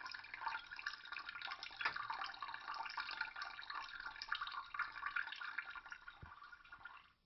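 Water running and splashing, like a tap into a sink, with many small crackly splashes; it cuts off suddenly near the end.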